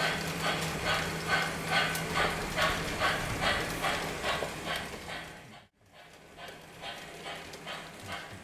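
Lionel model steam locomotive running with its train, giving a steady rhythmic beat about three times a second over a low hum. The beat fades and cuts out briefly about six seconds in, then carries on quieter.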